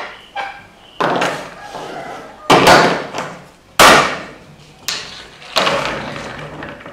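A series of about five loud, sudden knocks and thumps, each dying away briefly in the room, the loudest two in the middle.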